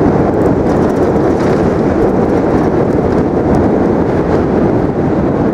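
Loud, steady rumbling noise with no distinct events: wind on the microphone mixed with traffic on the Manhattan Bridge.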